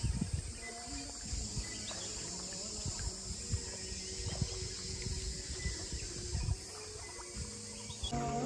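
Steady high-pitched insect chorus, with irregular low thumps and knocks.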